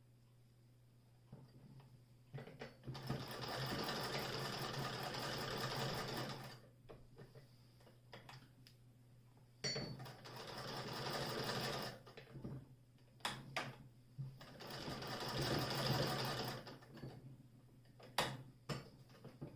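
Singer 28K hand-crank vibrating-shuttle sewing machine cranked in three runs of a few seconds each, a fast, even clatter of the mechanism, with single clicks and knocks in the pauses between runs.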